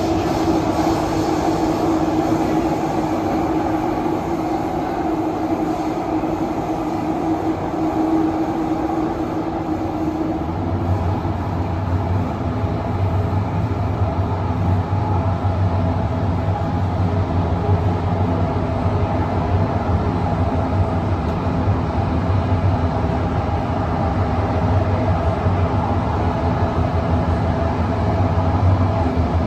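Interior running noise of a Kawasaki & CRRC Sifang CT251 metro train travelling between stations, heard from inside the car. A steady mid-pitched tone stops about ten seconds in, and a low steady hum takes over.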